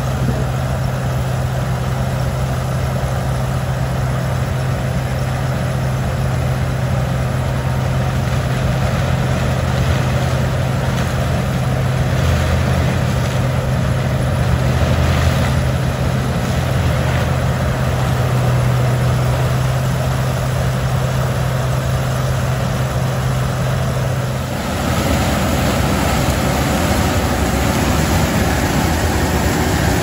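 Steady running of harvest machinery engines with a strong low hum. About 25 seconds in the hum drops out and a broader, even machine noise takes over, from the Case IH 2366 Axial-Flow combine working close by as it harvests corn.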